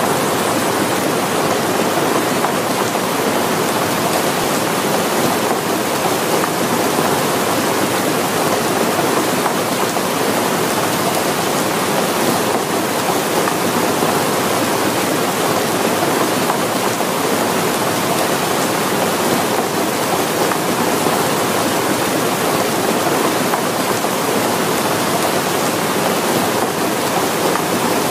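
Heavy rain pouring in a steady, dense hiss, with floodwater rushing down a street.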